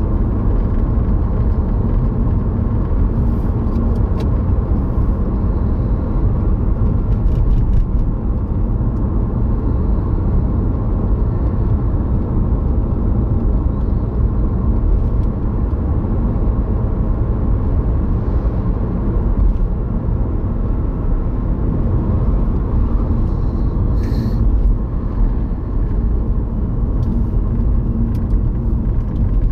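Car driving along a road, a steady low rumble of engine and tyre noise, with a few faint clicks now and then.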